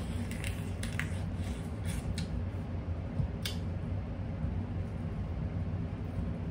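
Crab leg shells cracking and snapping as they are bitten and pulled apart by hand: a few sharp clicks in the first three or four seconds, then only a steady low hum.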